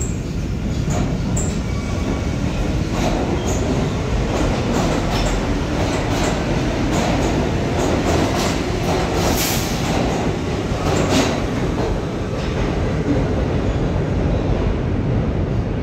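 Westinghouse-equipped R68 subway train pulling out of the station and picking up speed: a steady low rumble with a run of sharp wheel clicks over the rail joints, then the rumble goes on as it leaves the platform.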